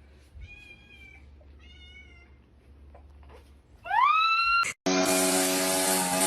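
A cat meowing: two faint, high mews, then a loud rising meow about four seconds in. After a short break, a loud steady engine-like noise with a low hum starts.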